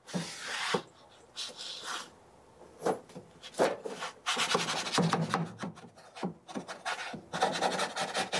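Wooden pizza peel scraping and knocking against the Gozney Dome oven in short, irregular rough strokes as a large pizza is jiggled off it into the oven, a tight squeeze through the opening.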